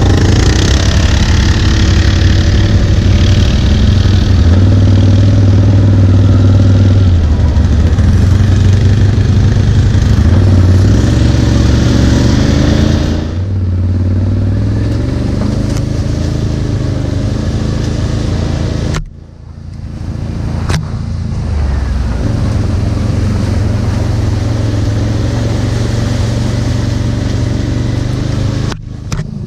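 ATV engines running while riding, the engine note rising and falling with the throttle. The sound drops sharply about halfway through and breaks off abruptly twice.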